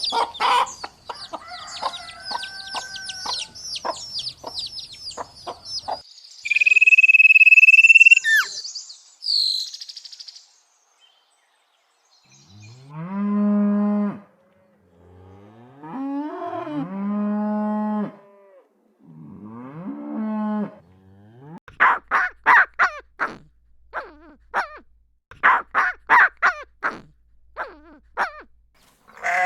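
A cow mooing three times, with long drawn-out moos in the middle of the stretch. Before them comes high, rapid chirping like chicks or small birds. Near the end comes a run of short, quick animal calls.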